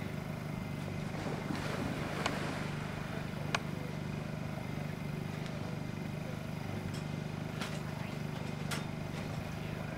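A Newfoundland dog splashing as it bounds into a lake about two seconds in, then swimming, over a steady low hum. A few sharp clicks come later.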